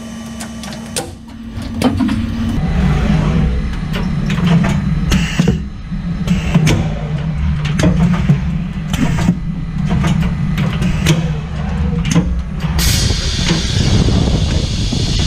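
Automated robotic packaging machine running: a steady low machine hum with frequent short clicks and knocks from its moving parts. A hiss starts near the end and continues.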